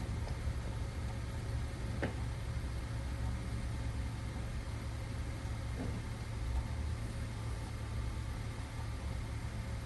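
Steady low rumble of a car running, with two faint clicks about two and six seconds in.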